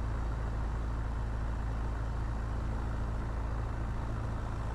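Piper Archer's four-cylinder Lycoming O-360 engine and propeller running steadily at low power while the plane taxis, a constant low drone.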